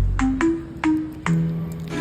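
Background music: a light melody of short, separate notes over a soft percussive beat.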